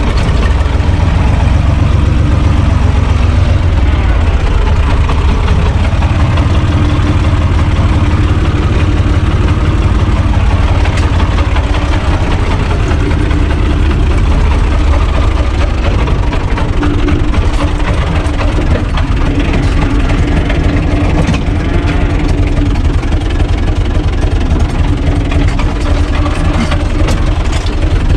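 UTB U445 DT tractor's four-cylinder diesel engine running steadily while the tractor is driven, heard loud from inside its cab.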